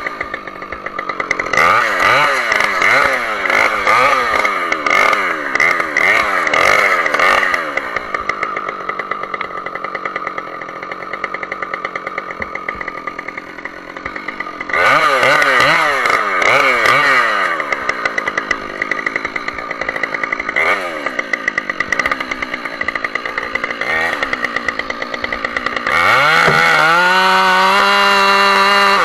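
Husqvarna 572 XP two-stroke chainsaw revving up and down in quick, repeated bursts, dropping back to a lower run between them. Near the end it climbs to full throttle and holds a steady high pitch, as in a cut.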